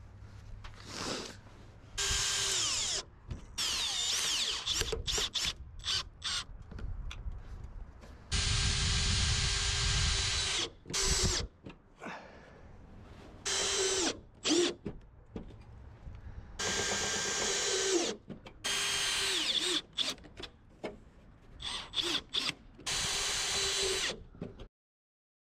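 Cordless drill running in about seven short bursts, driving screws to secure gutter guards, with quieter handling and scraping between the bursts. It cuts off abruptly near the end.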